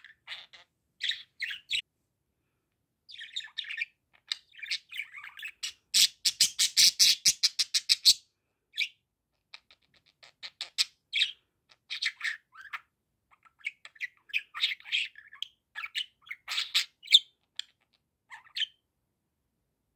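Budgerigar chirping and chattering in short high bursts. About six seconds in comes its loudest part, a fast run of rapid chirps, roughly ten a second for about two seconds.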